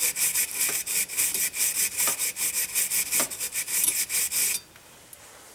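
Pipe cleaner brush scrubbed rapidly back and forth inside a freshly honed brake wheel cylinder bore, clearing out the honing debris, in quick scratchy strokes several times a second; the scrubbing stops about four and a half seconds in.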